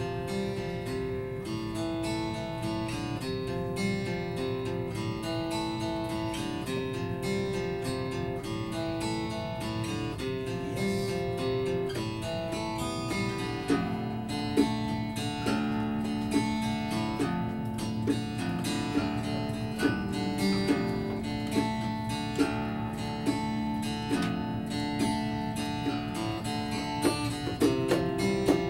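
Acoustic guitar playing a repeating picked and strummed figure with a second guitar and bongos. The part changes about halfway through, and sharp hand-drum strikes come through more often near the end.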